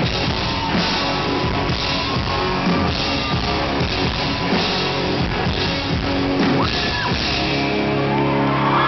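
Live rock band playing: distorted electric guitars, bass and a Ludwig drum kit pounding out a steady beat. About seven seconds in the drums stop and a final chord is held ringing, and the crowd starts cheering near the end.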